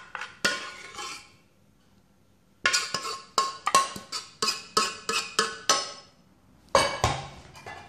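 Metal ladle clinking against the dish as béchamel is scooped and spread: a couple of ringing clinks, then a rapid run of a dozen or so, and a few more near the end.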